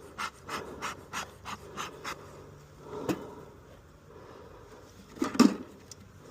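Rapid, rhythmic panting breaths about three a second, close to the microphone inside a bee suit's veil, stopping about two seconds in. A sharp click follows about three seconds in, and a brief, louder thump comes about five seconds in.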